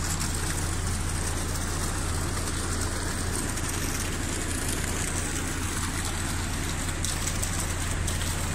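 Steady rush of a fast, shallow mountain river running over rocks and stones, an even noise of water with no breaks.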